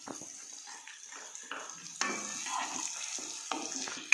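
Julienned onions sizzling in melted butter in a non-stick wok, stirred and scraped with a wooden spatula in irregular strokes over a steady frying hiss.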